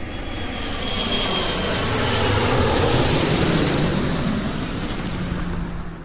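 Jet aircraft flyby sound effect: a rushing jet-engine noise that swells to a peak about halfway through and then fades away.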